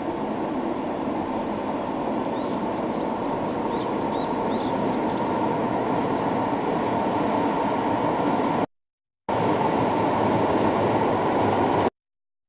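Train led by a DD51 diesel locomotive crossing a steel truss bridge: a steady rumble that grows a little louder as it passes. The sound cuts out briefly twice near the end.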